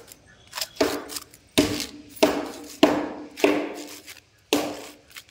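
A rhesus macaque scraping a bundle of dry straw against a concrete floor in repeated strokes, about six in quick succession, each a short scratchy swish.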